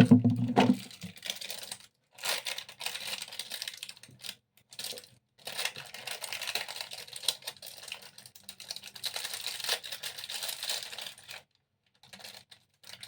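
A short, loud low sound at the start, then irregular spells of rustling and light clicking as wrappers and small objects are handled and rummaged through, with short pauses between.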